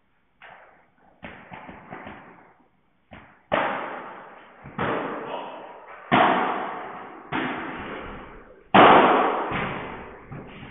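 Padel rackets hitting the ball in a rally: about a dozen sharp hits at irregular gaps, each ringing on in the hall, the loudest about nine seconds in.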